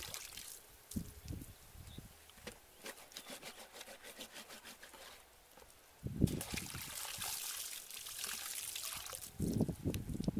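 Water pouring and dribbling out of a woven basket onto the ground as a small pond is bailed out, with drips trickling between scoops. About six seconds in the basket is dipped and a fresh load pours out, with heavier splashes near the end.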